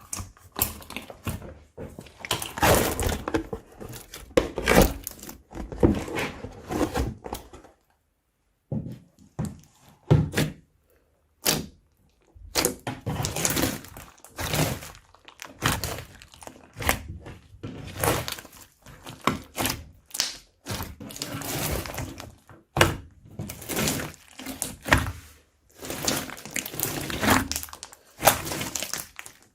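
Crunchy slime being squeezed and worked by hand, crackling and popping in dense, irregular bursts, with a brief pause about a third of the way in.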